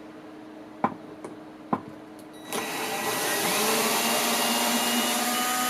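Two light clicks, then about two and a half seconds in a power drill starts and runs steadily, its whine rising as the motor comes up to speed, driving a 2-inch screw into the wooden box.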